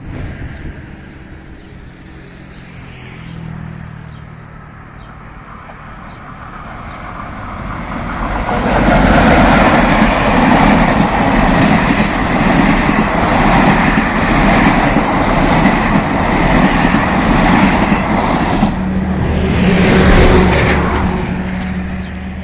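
Train hauled by ONCF electric locomotive E-1409 approaching and passing close by. A rumble swells over a few seconds into a loud, steady rush of wheels on rail lasting about twelve seconds, then eases off near the end as a low steady hum takes over.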